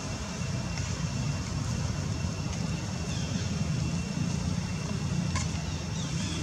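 Steady low rumble of a running engine, with a faint steady high whine above it.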